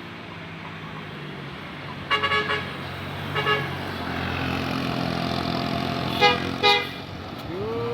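Bus 'telolet' musical horn sounding in short tooting bursts: a quick group of toots about two seconds in, a pair a second later, and two louder blasts near the end. Underneath, a bus engine runs steadily and grows louder as it approaches.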